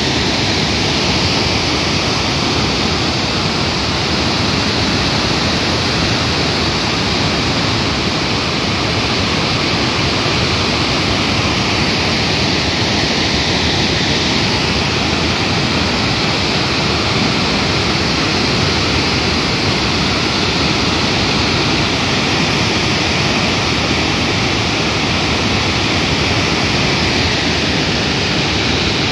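Water rushing and falling in a loud, even, unbroken rush.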